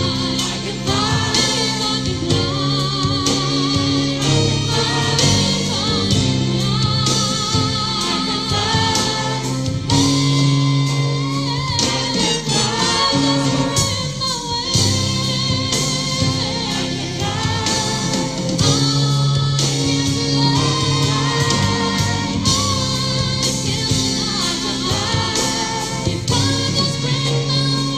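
A solo singer sings a power ballad live with heavy vibrato, backed by a choir and band in a gospel style.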